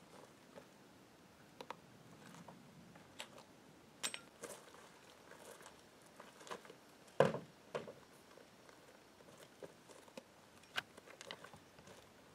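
Scattered light knocks and scuffs as a kayak trolley is picked up and handled and boots step on gravel, with one louder knock about seven seconds in.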